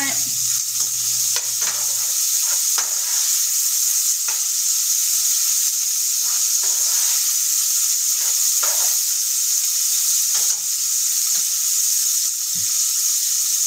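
Bacon frying in a skillet, a steady sizzle, with short scrapes of a spatula stirring the pieces every second or two.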